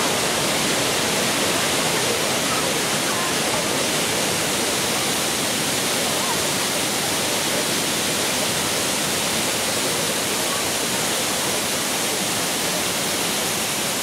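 Waterfall: a steady, even rush of falling water with no let-up.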